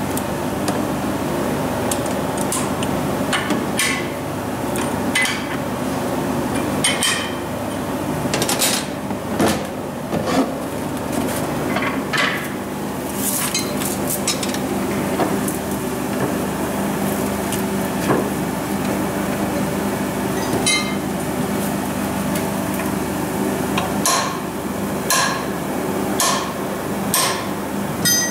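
Scattered metallic clinks and knocks as a steel torque converter and its fixture are handled and set into a lathe chuck, over a steady machine hum.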